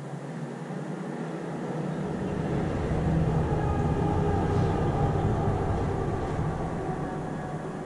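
A passing vehicle outside, a low rumble that swells for a few seconds and then fades away, over a steady low hum.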